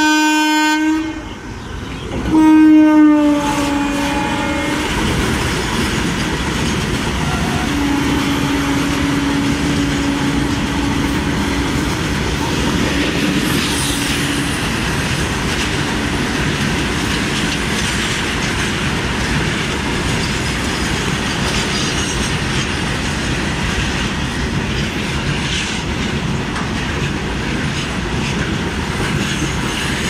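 Electric locomotive's horn sounding, breaking off about a second in, then sounding again about two seconds in with its pitch dropping slightly as the locomotive passes. A longer steady horn note follows from about 8 to 14 seconds. Throughout, the goods train's covered wagons run through at speed, with steady wheel noise and clickety-clack over the rail joints.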